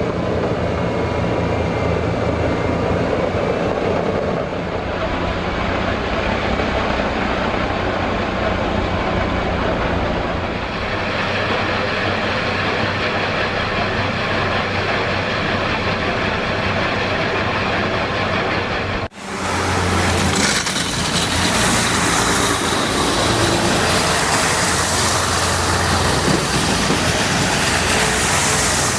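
Heavy snow-clearing machinery running steadily, with an abrupt cut about two-thirds through to a different machine with a brighter, hissier sound.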